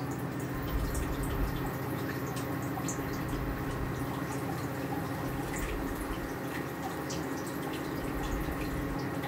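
Breaded chicken cutlets deep-frying in hot oil: a steady sizzle with small crackles and pops scattered through it.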